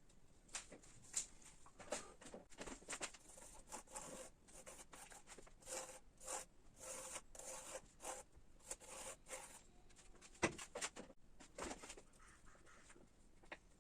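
Quiet, short scraping strokes of a hand tool working ash wood, coming in a quick, irregular series with a sharper tap about ten seconds in.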